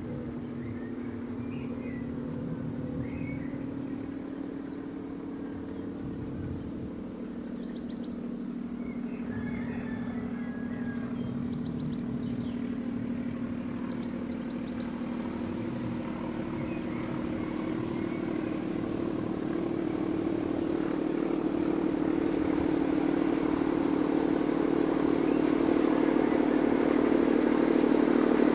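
Diesel locomotive engine running with a steady drone that grows gradually louder as it approaches. Birds chirp during the first half.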